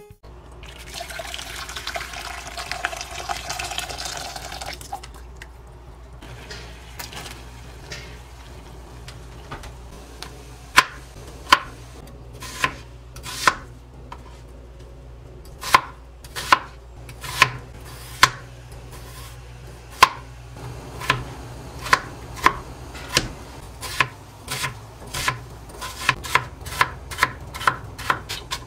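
Water poured from a kettle into an empty pot for about five seconds. Then a kitchen knife chops an onion on a plastic cutting board: single sharp strikes about a second apart at first, coming faster, several a second, near the end as the onion is diced.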